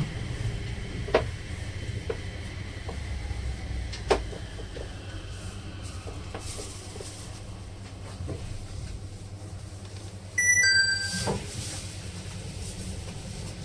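Nippori-Toneri Liner rubber-tyred automated guideway train running on its elevated track, heard from inside the front car: a steady low rumble with a couple of sharp clicks. About ten seconds in comes a louder, brief burst of short whistling tones stepping in pitch.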